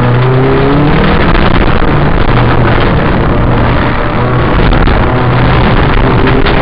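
Ford Escort RS2000 rallycross car's engine at full throttle, heard from inside the cabin: it climbs in pitch during the first second, then stays at high revs, with heavy tyre and gravel noise from the loose surface.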